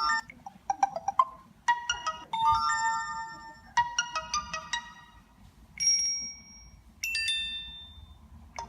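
Samsung Galaxy Y phone speaker playing a series of short ringtone and notification tones one after another. Each is a few electronic notes lasting about a second, followed by a brief gap before the next.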